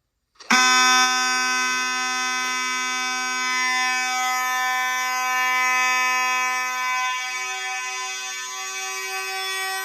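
Fire alarm horns sounding together in a loud, steady, continuous tone made of many pitches at once, starting about half a second in.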